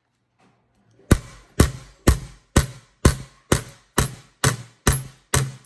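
A steady percussive beat of sharp hits, about two a second, ten in all, that stops abruptly.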